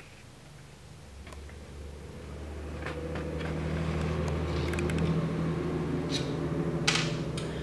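A steady low machine hum swells up over the first few seconds and then holds. Over it come a few light clicks of small metal parts as the side-link screw of a suspension seatpost is worked loose.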